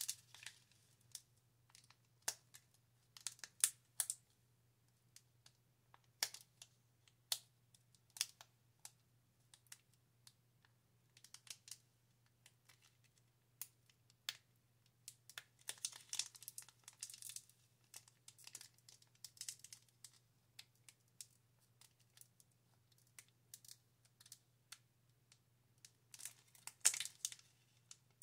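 Foil wrapper of a Pokémon booster pack crinkling and tearing in fits and starts as fingers pick at a stubborn seam. Scattered faint crackles, with longer bouts of crinkling about halfway through and again near the end.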